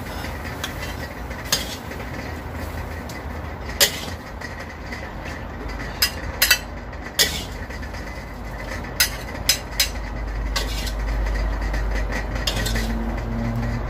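Kitchen clatter: a dozen or so sharp clinks and knocks of pots and utensils being handled, over a steady low rumble that grows louder near the end.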